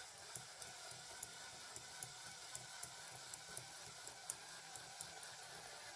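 LEGO Technic chain-driven CVT running under its electric motor: a faint, steady motor whir with light clicks from the plastic chain links over the wheels, about three or four a second.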